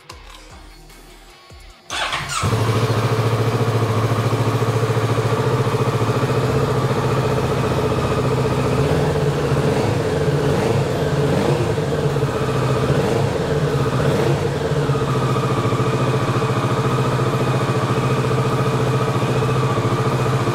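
Kawasaki Z650 parallel-twin engine started through its standard exhaust about two seconds in, then idling steadily.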